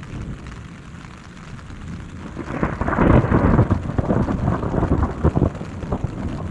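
Thunder in a rainstorm: a low rumble, then a loud crackling peal breaking about two and a half seconds in and rolling on, over falling rain.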